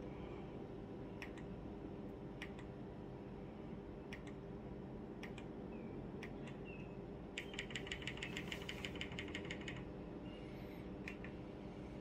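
Scattered short clicks of remote-control buttons, about one a second, with a quick run of about ten clicks a second for a couple of seconds past the middle, over a steady low hum.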